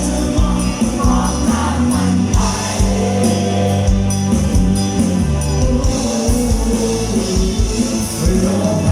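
Live band playing a Thai pop song: a singer over bass guitar and drums with regular cymbal hits.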